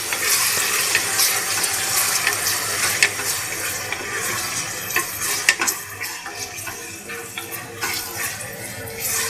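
Freshly added diced mutton sizzling in hot olive oil with onions and garlic in an aluminium pressure cooker, stirred with a wooden spoon that scrapes and now and then knocks sharply against the pot. The sizzle eases a little after about six seconds.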